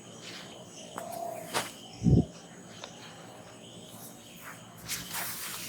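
Outdoor ambience of birds and insects, broken by a few sharp clicks and one much louder low thump about two seconds in, with a brief hissing rub near the end.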